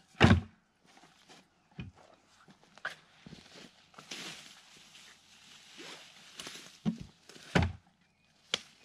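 A fresh-cut oak log knocking down onto a wooden sawhorse, the loudest thunk just after the start, then footsteps and rustling in grass, and a few more knocks near the end as the log is shifted into place.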